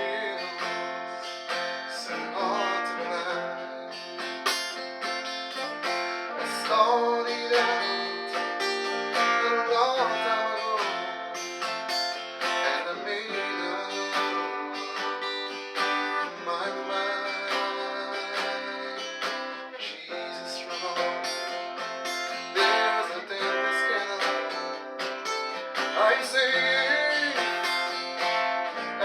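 Acoustic guitar playing a country gospel tune, strummed and picked, with a few sliding notes.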